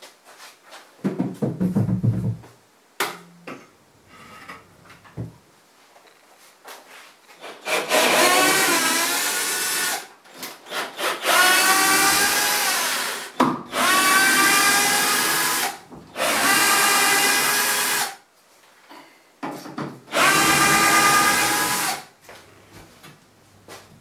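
Cordless drill-driver running in five bursts of about two seconds each, its motor pitch rising as each burst starts, as it backs out the fixings of a door frame. A few knocks and a low thud from handling the frame come before the first burst.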